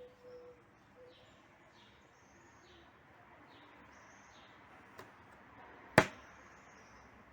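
Faint bird chirps repeating in the background, with a small click about five seconds in and a single sharp, loud click about a second later.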